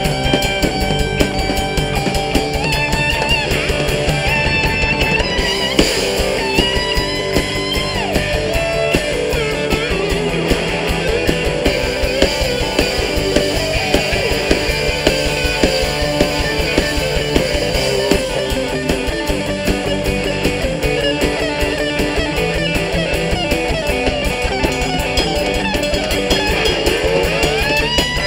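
Band playing an instrumental break: an electric dobro played with a steel slide bar carries the lead over bass and drums, its held notes gliding between pitches. Near the end, one long slide rises steeply.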